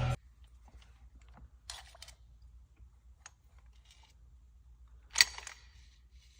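Scattered faint clicks and taps of small parts and tools being handled during engine work, with one sharp click about five seconds in.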